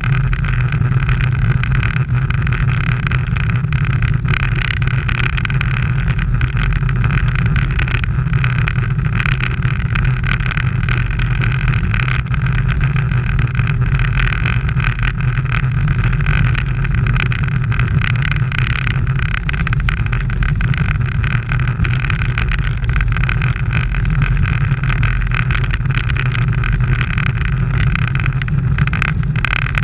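Steady wind rush and road noise picked up by a bike-mounted camera riding at racing speed: a loud, unbroken, muffled low drone.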